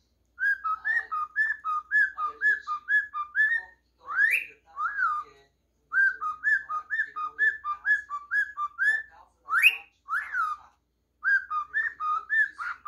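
Cockatiel whistling a song: quick runs of clear whistled notes, about four a second, each run ending in a louder rising-then-falling swoop. The phrase comes three times with short pauses between.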